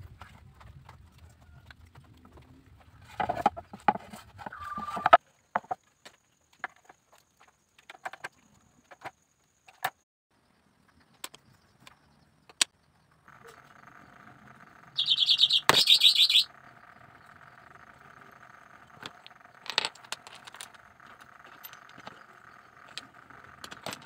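Scattered clicks and knocks of bamboo and wooden birdcage parts being handled and trimmed on a workbench. About fifteen seconds in there is a short, loud bout of high, rapid chirping or jingling, and a steady hum follows.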